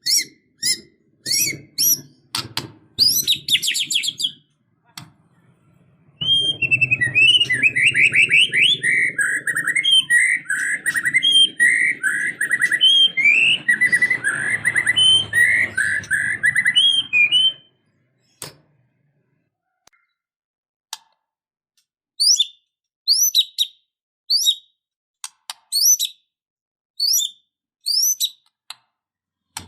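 White-rumped shama singing: a few sharp whistled notes, then a fast, varied run of song lasting about ten seconds, and after a pause a series of sharp whistles that sweep down in pitch.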